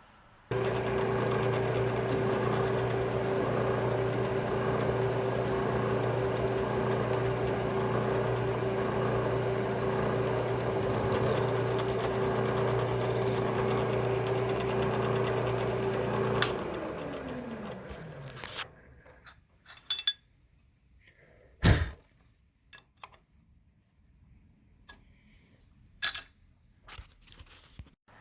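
Electric drill running at a steady speed while the small pin holes in a 5C collet round nut are drilled out to 1/4 inch, then spinning down with a falling pitch as it is switched off. Scattered clicks and knocks of the metal parts being handled follow, one of them louder.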